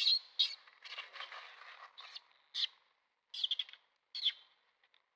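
Baby monkey screaming in short, high-pitched cries, several in quick succession, dying away about four and a half seconds in.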